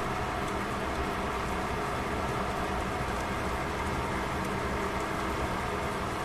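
Fish frying under a glass lid on a frying pan: a steady sizzle with scattered small pops and crackles.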